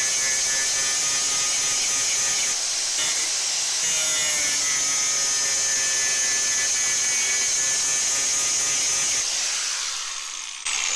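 Electric grinder running steadily with a high-pitched whine while grinding the peened end of a steel vise-handle ball end. About nine seconds in it is switched off and winds down, its whine falling in pitch.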